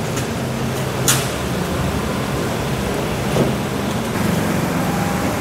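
Steady low mechanical hum of workshop machinery, with a short hiss about a second in.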